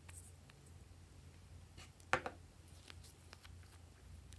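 Small glass nail polish bottles being handled and swapped: one sharp click about two seconds in, with a few faint taps around it, over a low steady hum.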